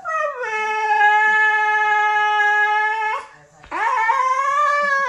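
Siberian husky howling: two long howls. The first slides down and then holds one steady pitch for about three seconds. The second starts about half a second after it and swells and wavers in pitch.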